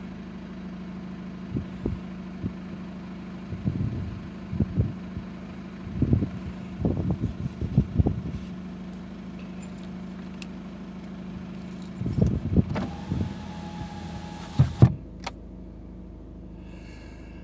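2012 VW Golf 2.0 TDI diesel engine idling with a steady hum and irregular knocks and handling noises, then shut off about fifteen seconds in, followed by a sharp click. The engine is smoking, and the owner suspects turbo failure after a stuck-open EGR valve.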